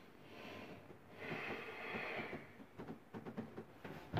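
A man's long breath out through the nose, then a run of small clicks and taps as he works a small hand tool at the tub's shower valve.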